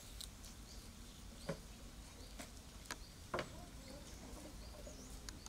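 Faint, scattered knocks and taps on a wooden feeding platform as a keeper steps about and sets food down, with small birds chirping faintly.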